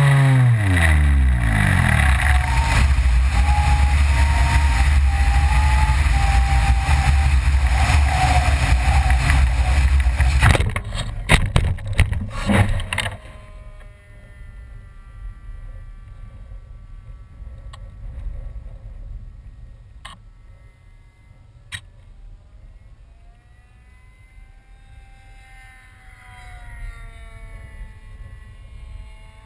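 An RC plane's OS 55 AX glow engine, filmed from on board, drops steeply in pitch as it dies and goes dead stick. A steady loud rumble follows during the glide, then a burst of hard impacts about 10 to 13 seconds in as the plane crashes into grass. After that it is quiet, with a faint distant engine rising and falling near the end.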